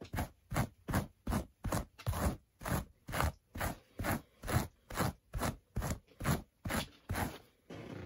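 Hairbrush dragged in quick, even strokes through a doll's synthetic hair, about two and a half scratchy strokes a second, stopping just before the end.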